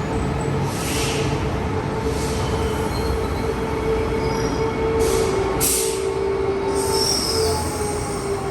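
Electric commuter train moving along the platform: a steady whine with short high-pitched wheel squeals over the rumble of the wheels.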